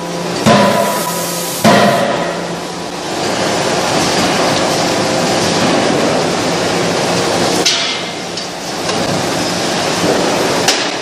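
Metal handling on a hot-forging line with a furnace and a cross wedge rolling machine. Two sharp metal clangs ring out about half a second and a second and a half in. After them the rolling machine runs with a loud, steady mechanical noise, which dips briefly about eight seconds in.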